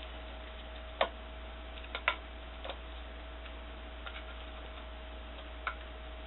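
A handful of sharp plastic clicks and knocks from a circular ball-track cat toy as a kitten paws at it, the loudest about one and two seconds in, over a steady electrical hum.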